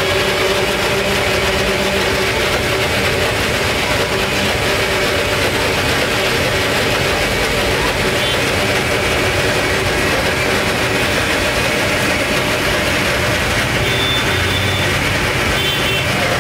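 Electric mixer-grinder motor running steadily, blending fruit into a juice in its plastic jar.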